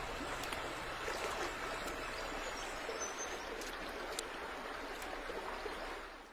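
Water of a small waterfall running steadily over rocks, fading out near the end.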